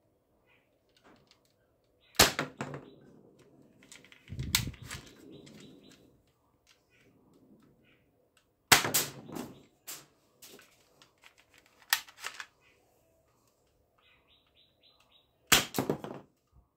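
Plastic toy pistol being worked and fired: about five loud, sharp snaps a few seconds apart, with handling clatter and rustle between.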